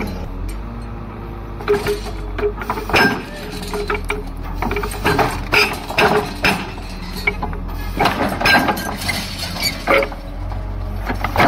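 A heavy demolition machine's diesel engine running steadily under irregular clanks, knocks and crunches of concrete and metal debris being broken.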